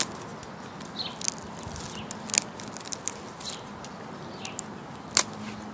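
Dry, cut-back plant stalks crackling and snapping as a hand works among them: a few scattered sharp clicks, the sharpest about five seconds in.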